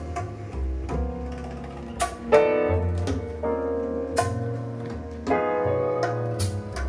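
Recorded music playing through a hi-fi system's loudspeakers: an instrumental passage of keyboard chords over a bass line, with several sharp percussion hits.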